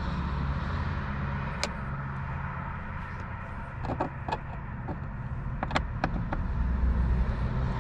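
Steady low vehicle hum, with a few sharp clicks and taps of hard plastic parts being handled on a Jeep Wrangler JL dashboard: one click early, a cluster about four seconds in, and more around six seconds in.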